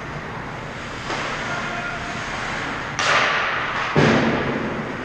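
Ice hockey play close to the net. Skates scrape the ice, a sharp hissing scrape comes about three seconds in and fades out, and a heavy thud follows a second later.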